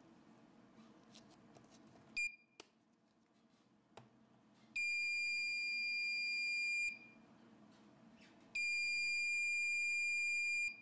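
Active buzzer in the receiver of a homemade Arduino wireless alarm sounding a steady high-pitched tone: a short beep about two seconds in, then two longer tones of about two seconds each. This is the alarm being set off by something in range of its ultrasonic sensor.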